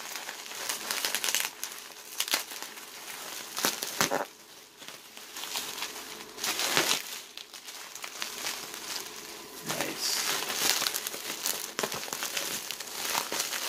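Large sheet of bubble wrap being pulled about and unwrapped right against a phone's microphone. The plastic crinkles and rustles unevenly, with scattered sharp crackles and a few louder bursts.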